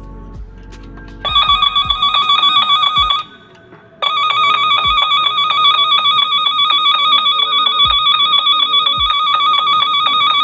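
ProsKit tone-tracer probe's speaker sounding the generator's warbling tone, loud and steady, while the probe is held against the telephone wiring on the punch-down block: about two seconds of tone starting a second in, a short break, then about six seconds more. The strong tone marks the pair carrying the generator's signal, the cable being traced.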